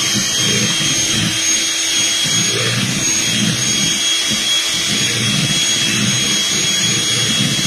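Electric hand mixer running steadily, its beaters churning through cupcake batter, with a thin high motor whine over the churning.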